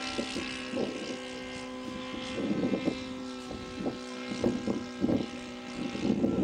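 Fuel-burning engine and propeller of a radio-controlled Pilatus PC-21 scale model droning at a steady pitch as it flies overhead, with a few short, indistinct noises over it.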